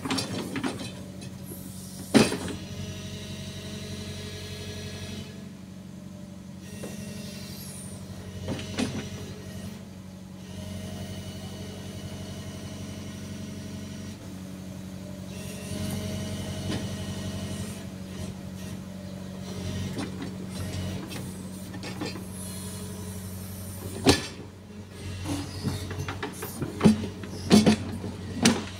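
JCB JZ 235 LC crawler excavator's diesel engine running steadily while the boom and bucket move, with a high whine that comes and goes. Sharp metal clanks from the bucket and arm, one about two seconds in and several near the end.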